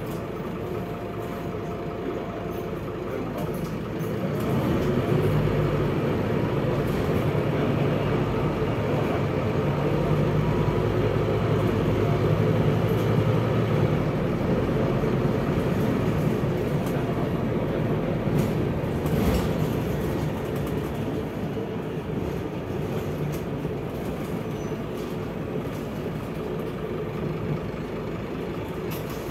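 Scania K230UB bus with its Scania DC9 diesel engine and ZF Ecomat automatic gearbox running under way, heard from inside the bus. The engine note rises about four seconds in and stays strong until about nineteen seconds, then eases off.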